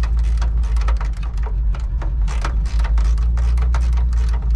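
Rapid, irregular clicking of a hand ratchet working the fasteners that hold a pickup's grille and chrome surround, over a steady low rumble.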